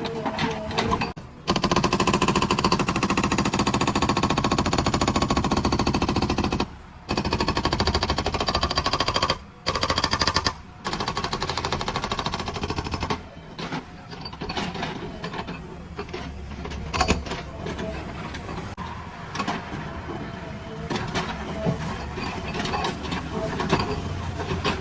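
Demolition breaker hammering rapidly in long bursts with a few short pauses. After about half the time it stops, leaving a machine's engine running with occasional knocks.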